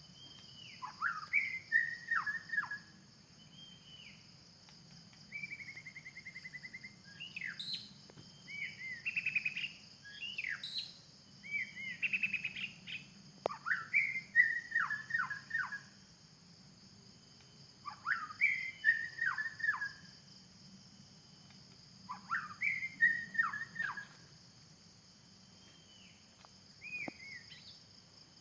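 White-rumped shama singing in the wild: phrases of varied, rich whistles and quick falling notes a second or two long, repeated with short pauses between. A steady high insect drone runs underneath.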